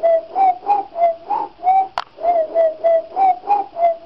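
A quick run of short whistle-like notes, about four a second, mostly on one pitch with small upward bends, broken by a sharp click about two seconds in.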